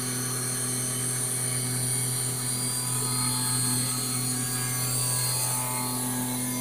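CNC router spindle running steadily as its tapered bit carves stone: a constant machine hum with a high hiss, with no change in pitch.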